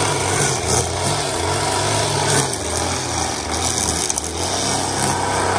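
Gas-powered string trimmer running at cutting speed, its spinning line cutting grass along a lawn edge.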